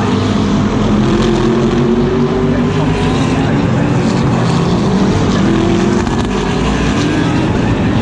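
GT race car engine running hard at high revs, with its pitch climbing slowly and then breaking and dropping about six seconds in, as at a gear change or lift.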